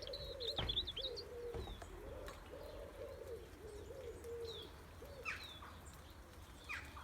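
A robin singing: scattered high, thin notes that fall in pitch. Under them a pigeon coos low and steadily for the first five seconds or so.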